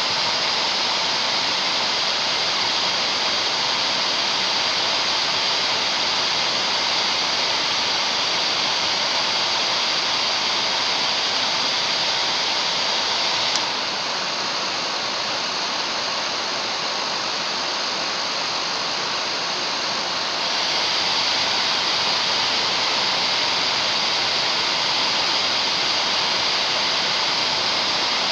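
Hair dryer blowing steadily. About halfway through there is a click and the sound drops a little and loses some of its hiss for about seven seconds, then comes back to full strength.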